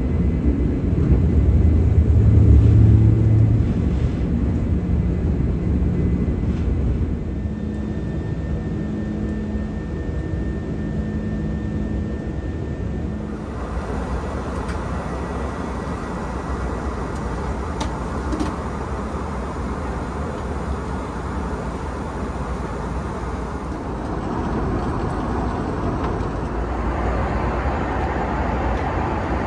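Airbus A330 airliner cabin noise: a steady low rumble with a droning engine hum, giving way about halfway through to a broader rushing hiss.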